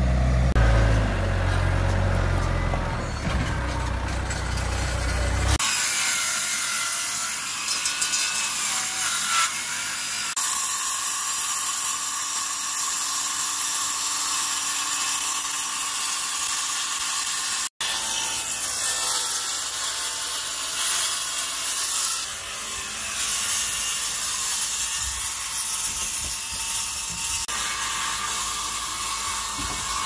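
A Branson compact tractor's engine running for the first five seconds or so. Then a DeWalt cordless circular saw cutting a sheet on sawhorses, making a steady high hiss that breaks off and resumes a couple of times.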